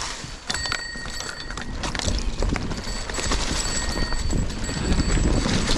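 Mountain bike rattling and clattering over a rough dirt trail at speed, with wind rumble on the microphone growing louder about two seconds in. A thin steady high whine runs under the rattle.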